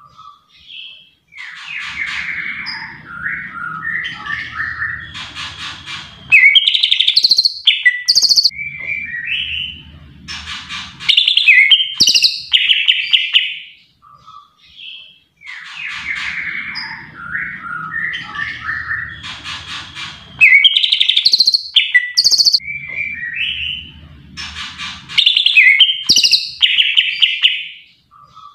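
A male greater green leafbird (cucak ijo) singing a loud, varied song of whistles, chirps and fast trills in short phrases with brief pauses. The same sequence of phrases repeats about fourteen seconds later.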